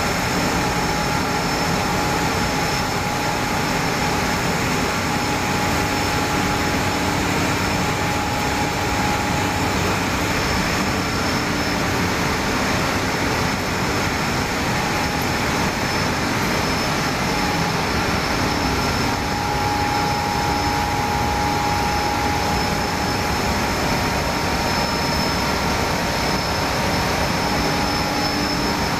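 A row of textile waste opening machines running, the kind that turn waste into cotton fibre. Their electric motors, belt and chain drives and rotating rollers make a steady mechanical drone with a thin, steady high whine over it.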